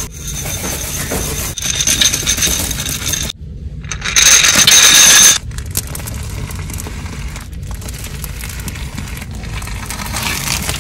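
Sprinkles and small clay toppings poured onto a tub of slime, rattling and clinking. The sound is loudest for about a second around the middle, then drops to a quieter rustle as a gloved hand works the toppings in.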